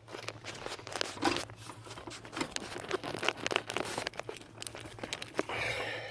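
Rustling, crinkling and clicking of the turn signal switch's wiring and its plastic connector being handled, over a steady low hum.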